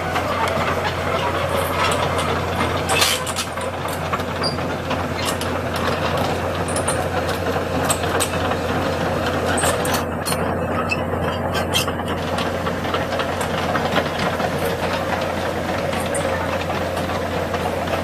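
Komatsu PC200 crawler excavator travelling on its steel tracks: the diesel engine runs steadily while the track links clank over rocky ground in a continuous run of clicks.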